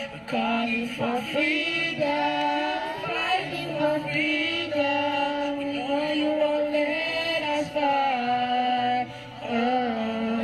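A group of girls singing a nasyid together in one melody, with long held notes over a backing track's steady low notes.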